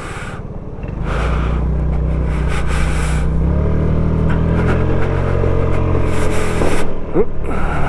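Motorcycle engine idling, then revving as the bike pulls away about a second in and accelerates, its pitch changing a few seconds later, with wind rumble on the helmet microphone.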